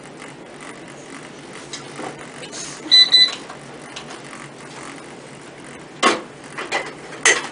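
Two short, high electronic beeps in quick succession about three seconds in, over a quiet room background. Near the end come two brief noisy bumps.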